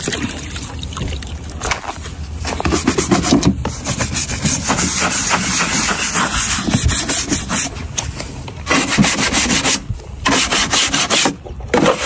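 A scrubbing sponge rubbed hard back and forth over a wet, soapy plastic center console from a 1987 Monte Carlo SS: rapid scratchy strokes, quieter for the first couple of seconds, then loud with brief pauses near the end.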